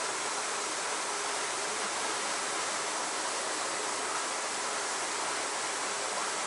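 Steady, even outdoor hiss with no distinct events, of the kind that flowing water or a loud cicada chorus makes.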